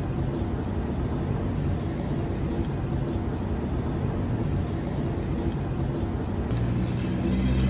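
A machine's steady low rumble, with a steadier low hum coming in near the end.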